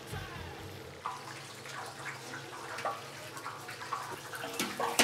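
Battered mushroom tempura frying in a large pot of oil: a steady bubbling hiss with scattered metal clinks, and a sharp clank at the very end.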